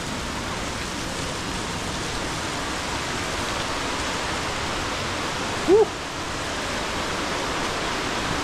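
Steady rush of a nearby waterfall, growing a little louder. About two-thirds of the way in, a short 'Woo!' shout is the loudest sound.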